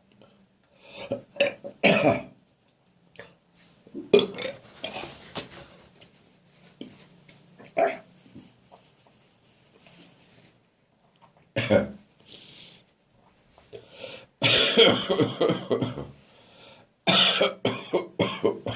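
A man coughing a harsh, throaty cough from a winter head cold, in separate fits, with the two longest runs of coughs near the end.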